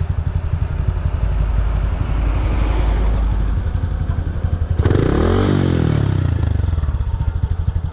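Motorcycle engine running steadily under way, with a dense low firing pulse. About five seconds in, a higher engine note briefly drops in pitch.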